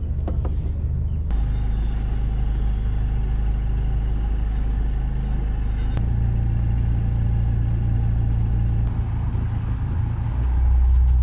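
Sailboat's inboard engine running steadily at low speed, a deep, even hum. Its pitch and level change abruptly about a second in, about six seconds in and near the end.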